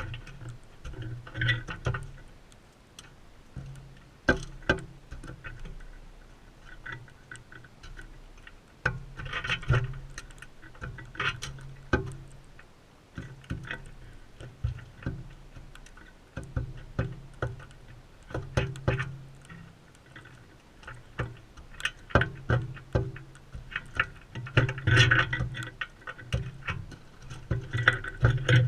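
Birds feeding at a feeder close to the microphone: irregular sharp clicks and taps of beaks cracking seed and knocking on the feeder, with a few short louder bursts of sound.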